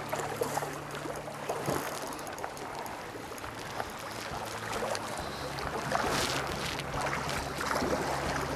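Hooked steelhead thrashing and splashing at the surface of shallow river water, several separate splashes, the loudest about six seconds in, over a steady rush of river water.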